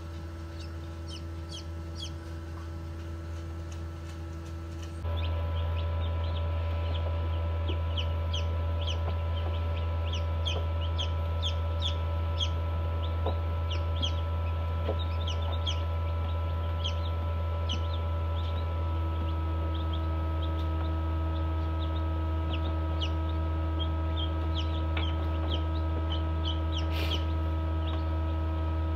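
Newly hatched chicks peeping inside an incubator: many short, high cheeps in quick succession, over the incubator's steady hum. The sound steps up in loudness about five seconds in.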